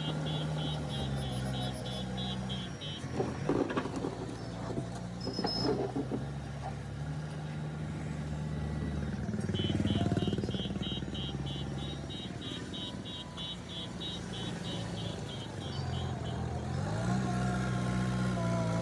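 JCB backhoe loader diesel engines running under changing load, their pitch stepping up and down as the machines work. There are several sharp knocks about three to six seconds in, a rapid high beeping in two spells, and an engine revving up near the end.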